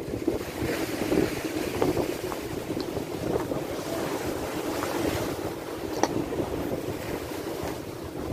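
Sea waves breaking and washing against shoreline boulders, with wind buffeting the microphone.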